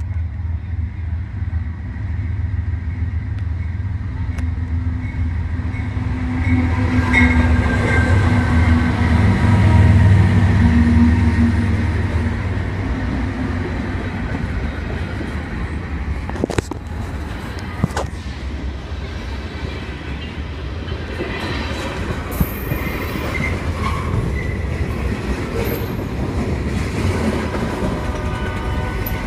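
BNSF diesel-hauled train passing close by. A deep locomotive rumble with a steady hum swells to its loudest about ten seconds in, then the cars roll past with wheel clatter, two sharp clicks and faint high wheel squeal.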